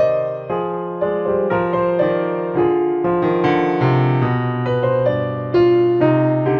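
Background solo piano music in a gentle classical style, notes struck one after another and left to fade.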